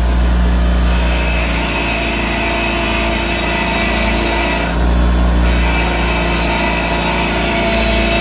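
Craftsman 6-inch bench grinder running at speed with a wire wheel scrubbing rust and corrosion off a brake caliper slide pin: a steady motor hum under a scratchy wire-brushing noise. The brushing grows louder briefly about five seconds in, as the pin is pressed harder to the wheel.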